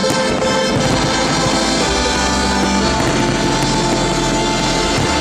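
Orchestral music with brass holding sustained notes; a low bass line comes in about two seconds in.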